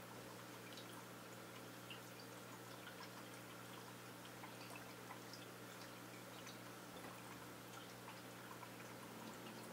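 Faint steady low hum with scattered soft ticks and drips, typical of running aquarium equipment.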